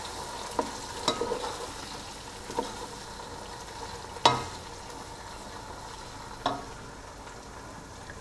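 Tomatoes and onions sizzling in hot oil while a slotted wooden spatula stirs them in the pan, with a few knocks of the spatula against the pan, the loudest a little past halfway. This is the frying of freshly added tomatoes into the onion and ginger-garlic base of a pulao masala.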